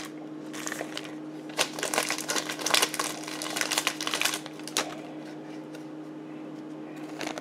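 Trading cards being handled and flipped by hand: a run of crisp rustles and light clicks for about four seconds that then stops, over a faint steady hum.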